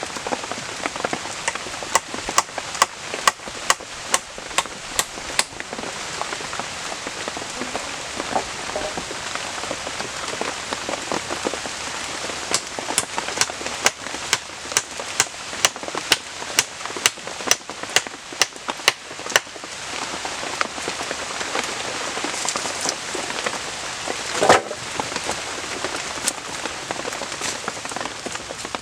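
Heavy rain falling steadily. Over it come sharp knocks at about two a second, a short run early on and a longer run in the middle, then one louder knock near the end.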